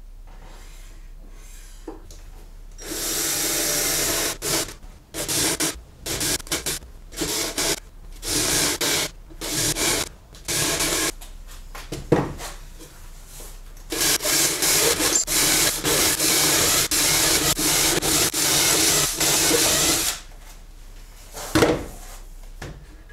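Power drill boring a row of holes into a wooden dowel, in a series of short bursts and then one longer steady run, with a couple of sharp knocks between them.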